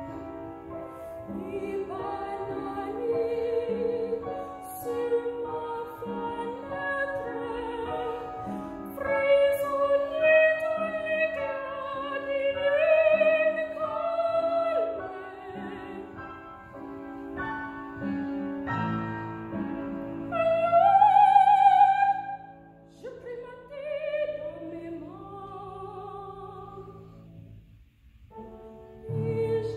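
Female classical singer performing an art song in operatic style with piano accompaniment: long sung notes with vibrato, rising to a loud high note about two-thirds of the way through, then a short break before the singing resumes near the end.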